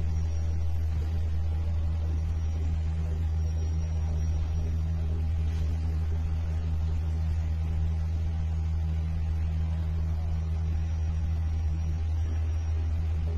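A steady low hum or drone that does not change.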